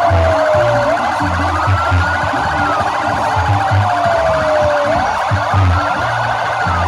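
Several ambulance and motorcycle sirens sounding at once: a slow wail rising and then falling about every four seconds, over a fast pulsing siren tone and other overlapping sweeps.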